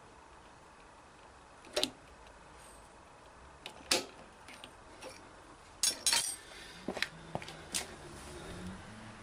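Scattered metallic clicks and clinks of tools and small metal parts being handled during work on a motorcycle's primary chain drive: single knocks about two and four seconds in, then a quick run of clinks a couple of seconds later.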